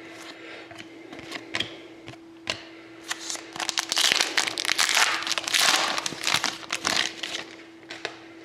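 Trading card pack wrapper crinkling and tearing as a pack is opened, with scattered light clicks of cards being handled before and after. The crinkling is densest for a few seconds in the middle.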